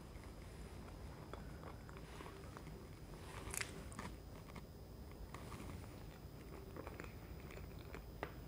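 Close-miked eating of soft chocolate fudge cake from a spoon: quiet wet chewing and mouth sounds, with a few small sharp clicks, the loudest about three and a half seconds in.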